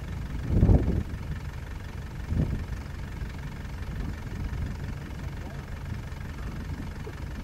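Vehicle engine idling with a steady low rumble, with a loud thump about half a second in and a smaller one about two and a half seconds in.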